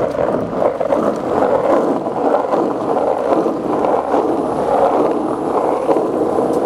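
Skateboard wheels rolling over a wet, rough road surface: a steady gritty rolling noise.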